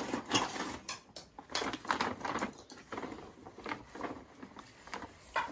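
Plastic seed packet crinkling and rustling as a hand rummages inside it, in short, irregular crackles.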